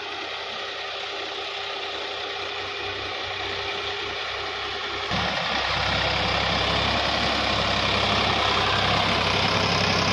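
Sonalika DI 750 tractor's diesel engine running. About five seconds in it suddenly gets louder and deeper and holds steady at the higher level.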